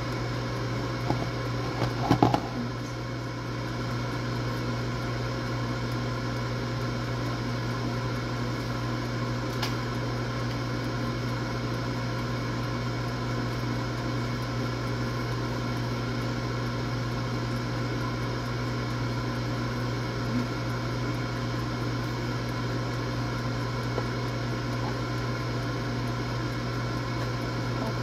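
Air fryer running with a steady fan hum while it cooks, after a few clicks and knocks about two seconds in.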